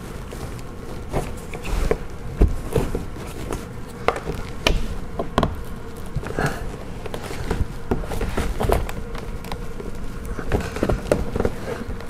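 A plastic trim removal tool prying at the edge of a car's interior door panel: irregular clicks, knocks and scrapes of plastic on plastic as the tightly clipped panel resists. A steady faint hum runs underneath.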